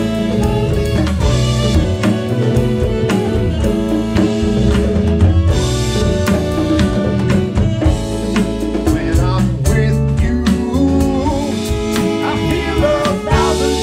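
A band playing live: an electronic drum kit keeps a steady beat under electric bass, electric guitar and saxophones.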